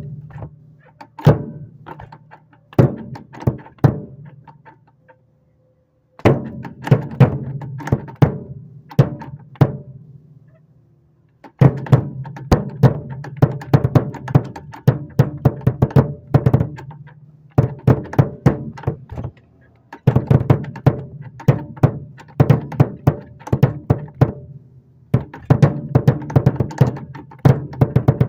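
Drum kit being played, snare drum included: runs of rapid strokes that stop and start, with clear pauses about five and ten seconds in and shorter breaks later.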